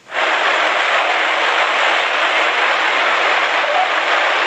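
Loud, steady rushing noise like static, starting abruptly and holding level, carried in the playback of a voice-changer effect preview.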